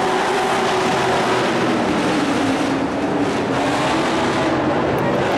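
A pack of race trucks' engines running hard together as they race, a loud steady engine drone.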